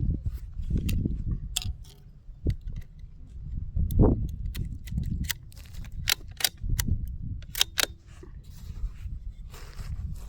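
Sharp cracks and clicks from target shooting with a Mark II rifle, the strongest about four seconds in, over a steady low rumble of wind buffeting the microphone.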